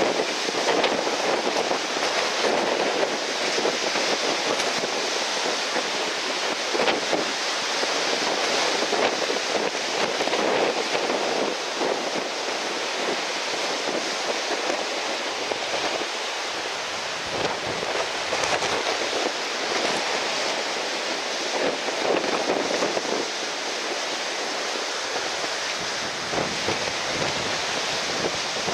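Strong gusting wind buffeting the microphone over the steady rush of breaking surf. The noise swells and eases with the gusts.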